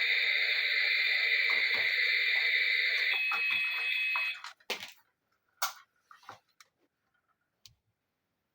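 A steady hissing rush that stops about four seconds in, followed by a few separate light clicks and taps of small toy pieces being handled.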